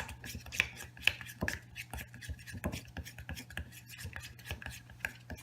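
A utensil stirring glue and food colouring in a bowl, with irregular scraping and clicking against the bowl.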